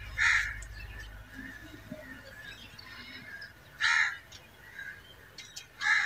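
A bird cawing three times, short loud harsh calls: one at the start, one about four seconds in and one at the end.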